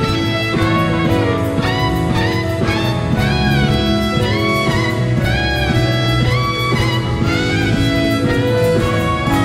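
Solo violin playing a melody of changing, vibrato-laden notes over sustained orchestral accompaniment.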